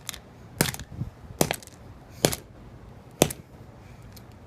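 Five sharp blows, a little under a second apart, smashing the camera section of a flip phone.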